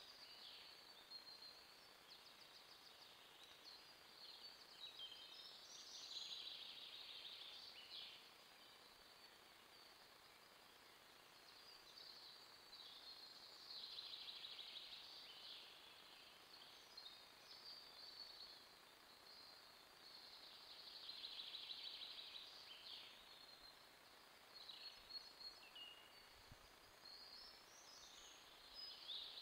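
Faint woodland birdsong: songbirds singing short, quick phrases every few seconds over a low steady hiss.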